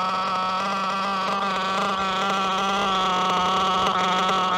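Maxy's Cinco 2.0 nitro RC engine running steadily through its break-in, a high buzzing drone that holds an even pitch.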